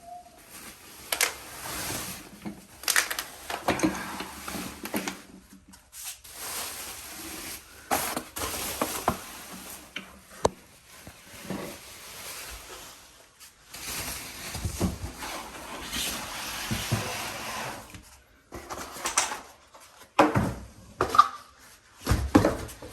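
Packaging rustling and loose parts clattering as a new pressure washer and its accessories are unpacked by hand, in uneven bursts with a few sharp clicks and short pauses.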